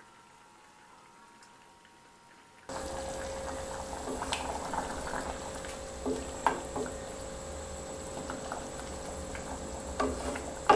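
Quiet for the first few seconds, then chicken curry simmers in an aluminium saucepan with a steady bubbling hiss. A wooden spatula stirs the curry and knocks and scrapes against the pot several times.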